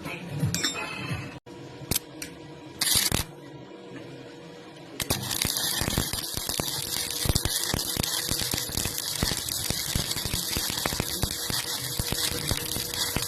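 Electric welding arc crackling and hissing steadily with dense sharp pops, starting about five seconds in after a brief hiss and a few clicks.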